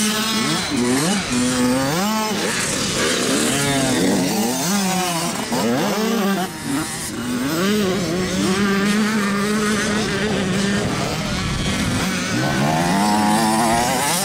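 Youth KTM two-stroke motocross bikes running on a dirt track, the engine pitch climbing under throttle and dropping off again over and over through jumps and corners. At times a second bike can be heard under the first.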